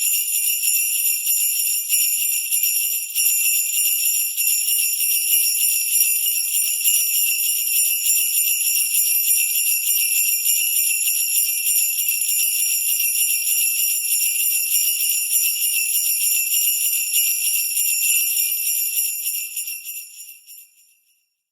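Sleigh bells shaken continuously in a steady, dense jingle, fading out near the end.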